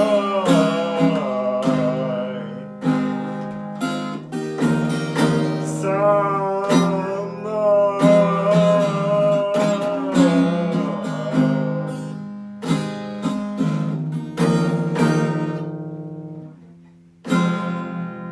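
Acoustic guitar strummed with a wordless, wavering vocal melody over it. Near the end the playing thins out for a moment, then a last chord is struck and rings out.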